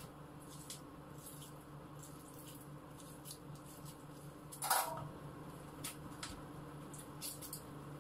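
Dishes and utensils being washed by hand in a kitchen sink: small clicks and scrapes over a steady low hum, with one louder clink of a dish a little over halfway through.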